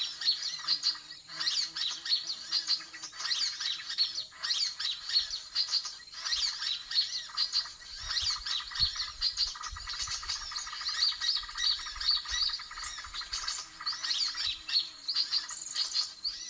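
Busy chorus of many small birds chirping and squawking over one another without a break: the 'suara ribut' commotion call played as a lure for trapping birds.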